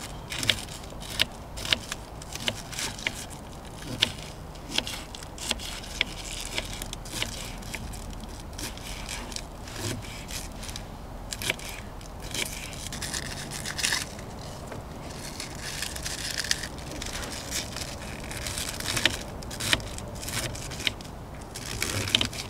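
Kitchen knife shredding raw cabbage on a wooden cutting board: a crisp crunch through the leaves with each stroke and a sharp knock of the blade on the board, in an uneven rhythm of one to three cuts a second.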